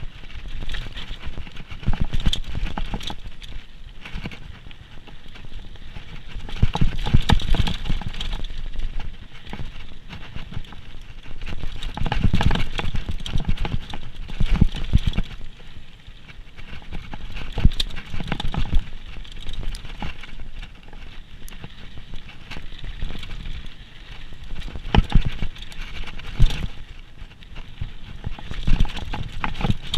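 Downhill mountain bike rattling and clattering over rough trail: a dense run of knocks from frame, chain and suspension over a low rumble, growing louder and quieter in waves as the terrain changes.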